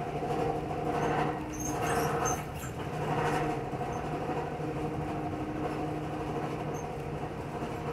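Amtrak Southwest Chief passenger train heard from inside the coach while running: a steady rumble with a constant hum, rising in a few louder swells in the first half.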